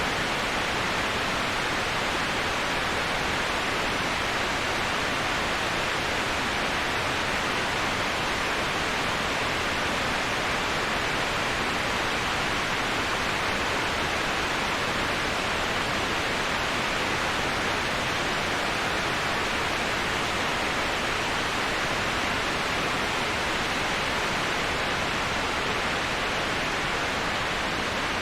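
Waterfall white noise: the steady, unchanging rush of falling water, an even hiss with no breaks or separate splashes.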